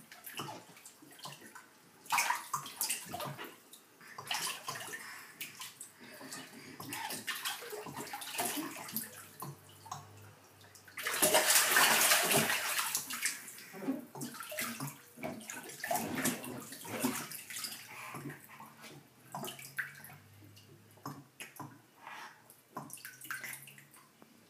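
A baby splashing and slapping the water in a bathtub with its hands: irregular splashes, with a louder stretch of splashing about halfway through.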